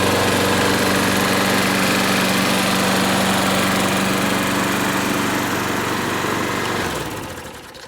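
A John Deere JS30 mower's 6.75 hp Briggs & Stratton flathead engine running steadily at an even speed. About seven seconds in it is shut off and winds down to a stop.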